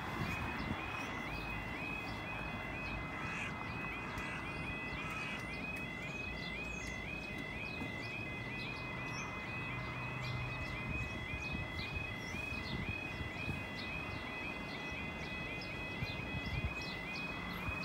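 UK level crossing warning alarm sounding a repeating two-tone warble while the crossing is closed to road traffic. Birds chirp behind it.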